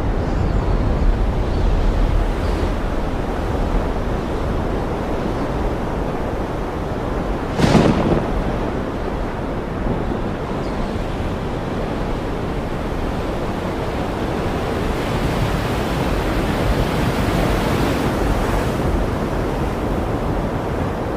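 Heavy wind and rain making a steady rushing noise, with wind buffeting the microphone. A brief louder gust about eight seconds in.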